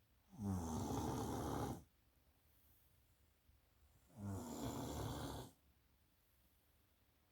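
Snoring in slow, regular breaths: two long snores of about a second and a half each, some four seconds apart.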